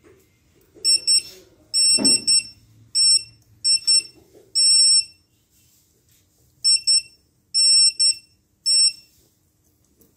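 Electronic beeper sounding a high-pitched tone in short, irregular beeps, mostly in quick pairs and triples, with a couple held for about half a second. A dull thump lands about two seconds in.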